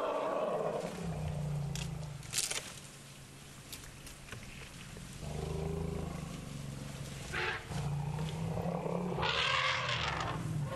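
African elephants in the herd vocalising: repeated low rumbles, with a louder, harsher call about nine seconds in. A single sharp crack about two and a half seconds in.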